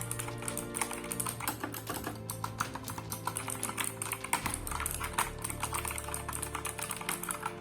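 Typing on a RedGear Shadow Amulet mechanical keyboard with clicky blue switches, a Cherry MX Blue copy: a fast, irregular run of sharp key clicks heard up close. Background music plays underneath.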